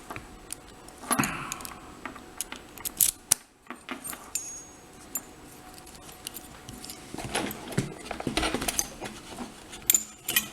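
Metal keys jangling and clinking in scattered bursts, with sharp light clicks of small metal parts being handled.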